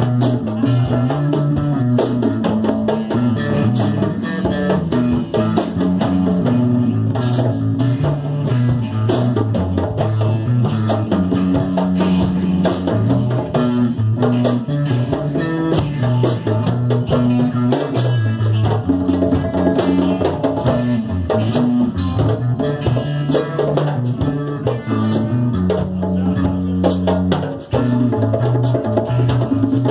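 Live instrumental jam: an amplified electric guitar plays a low, repeating melodic line over djembe hand drumming with frequent sharp slaps.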